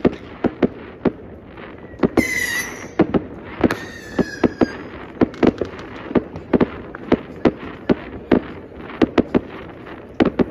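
Fireworks and firecrackers going off: a rapid, irregular string of sharp bangs, several a second, with two short whistles about two and four seconds in.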